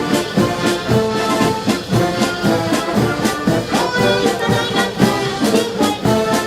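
Brass band playing music with a steady beat of about two strokes a second.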